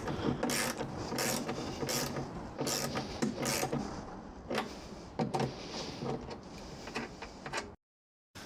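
Hand tools working metal bracket hardware: a run of sharp metallic clicks, about one every half second at first and then sparser, as bolts and nuts are turned with a small ratchet. The sound cuts off suddenly near the end.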